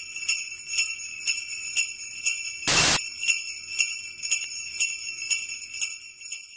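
Sleigh bells jingling in a steady rhythm, about four shakes a second, with a short loud hiss of noise about three seconds in; the bells fade out near the end.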